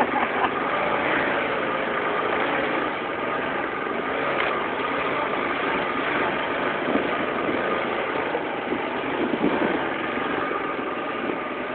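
ATV engine running steadily while it is ridden over a rough, muddy dirt track, with small swells in engine pitch.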